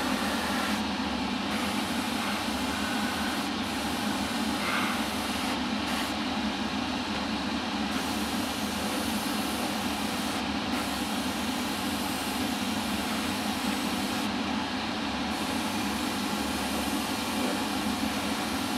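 Harder & Steenbeck Infinity CR Plus airbrush spraying white paint, a steady hiss of air that thins out briefly several times between passes, over a constant low hum.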